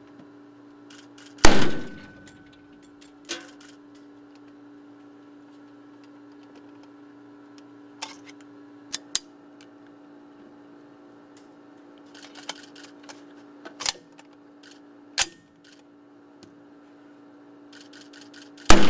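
Two rifle shots from a Heckler & Koch AR-style rifle fired into a ballistics water tank, one about a second and a half in and one near the end, each with a short echoing decay. Between the shots come scattered light clicks of the rifle being handled, over a steady low hum.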